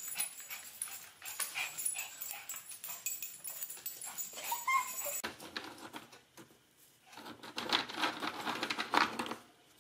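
Small dogs excitedly waiting for a treat: scattered clicks of nails on a tile floor and a few short rising whines. Near the end comes a stretch of rustling as a hand rummages through dog treats in a jar.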